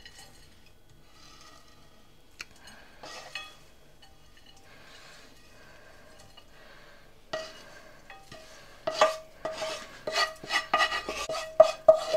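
Wooden spatula scraping cooked dry-fish thokku out of a non-stick frying pan onto a plate: soft scrapes at first, then, from about seven seconds in, a quick run of taps and scrapes with a ringing tone.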